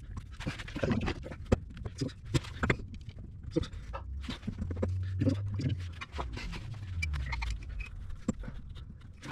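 A man breathing hard and grunting with effort while he works the transfer case front output housing loose from underneath the vehicle, with one drawn-out low groan around the middle. Scattered sharp clicks and knocks of metal tools against the housing run through it.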